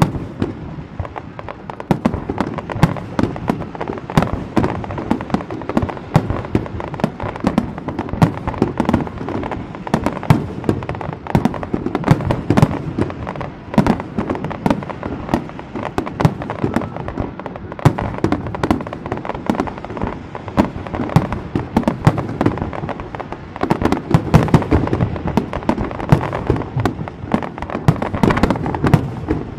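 Aerial fireworks display: a dense, continuous barrage of shell bursts and booms with crackling in between, many bangs a second.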